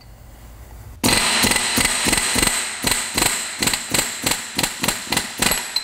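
Pneumatic air hammer hammering against the hub of a Roots supercharger pulley to drive it off its shaft: a steady hiss with rapid rattling strokes, about five a second, starting about a second in.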